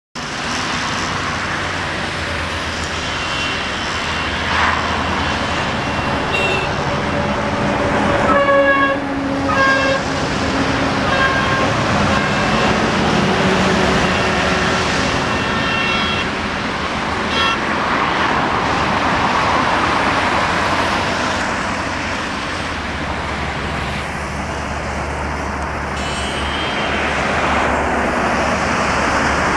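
Steady rumble of vehicles with several short horn toots, the clearest about 8 to 10 seconds in.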